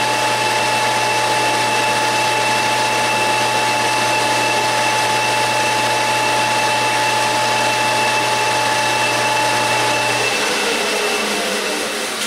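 Gear-head metal lathe running at about 1,480 rpm, a steady mechanical whine with a low hum. About ten seconds in it is switched off and the spindle spins down, the whine falling in pitch as it fades.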